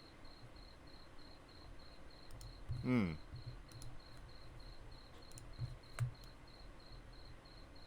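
Faint, high-pitched chirps repeating in a steady, even rhythm, with a short vocal sound from a person about three seconds in and a single click near six seconds.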